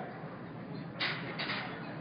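Steady background noise of a large indoor hall with people around, with two short hissy bursts a little after a second in.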